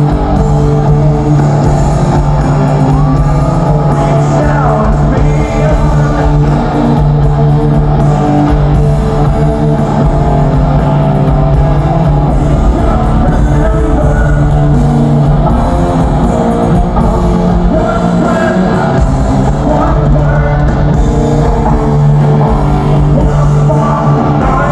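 Progressive metal band playing live in an arena: loud heavy rock with guitar, bass, drums and singing, echoing through the hall.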